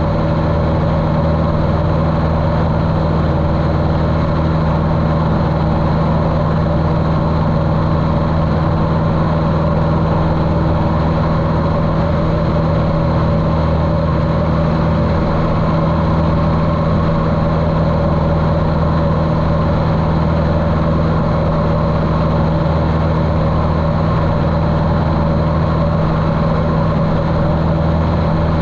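Cessna 150L's Continental O-200 four-cylinder engine and propeller running steadily in flight, at a constant pitch and level, muffled by the camera's waterproof case.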